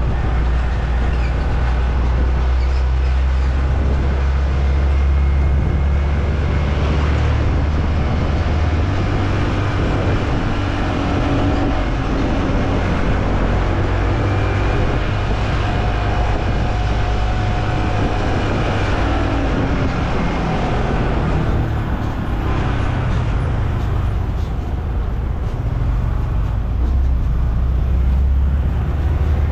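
Yamaha M-Slaz single-cylinder motorbike engine running on the move, its pitch wavering with the throttle, over steady road and traffic noise. A heavy low rumble eases about eight seconds in and returns near the end.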